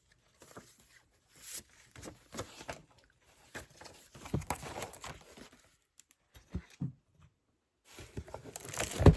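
Rustling and crinkling of paper and packaging being handled, with small clicks and taps of plastic, and one sharp knock just before the end.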